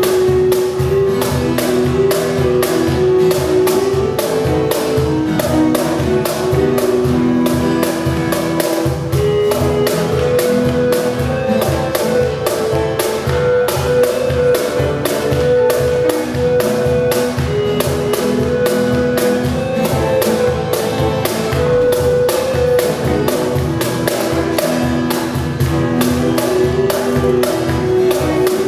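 Small church band playing an instrumental piece: long held keyboard notes over acoustic guitar, with a steady hand-drummed cajón beat.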